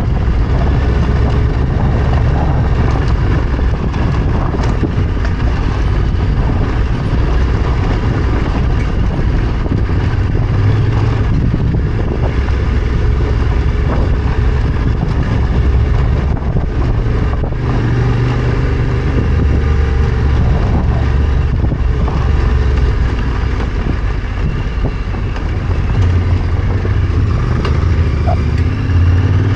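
Yamaha Ténéré 700's parallel-twin engine running steadily as the motorcycle is ridden off-road, its pitch rising near the end as the rider opens the throttle.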